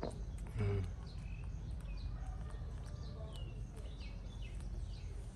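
Small birds chirping again and again over a steady low outdoor rumble, with one brief loud voice-like sound just under a second in.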